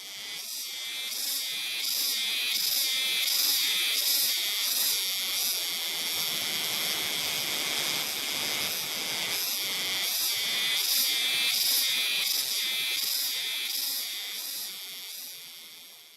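Cicada singing: a shrill, continuous buzz with a regular pulsing beat. It swells up over the first few seconds and fades out near the end.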